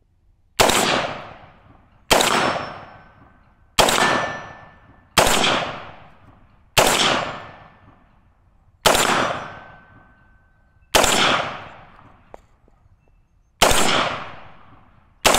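Radical Firearms FR16 AR-15 rifle fired in slow single semi-automatic shots, nine in all, spaced about one and a half to two and a half seconds apart, each shot followed by a long fading echo.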